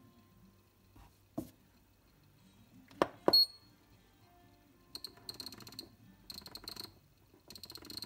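Two sharp knocks about three seconds in, the second followed by a short high beep from the timer's buzzer. Then, from about five seconds in, three runs of rapid clicking ticks as the rotary encoder knob of a homemade ESP8266 kitchen timer is turned to set a time.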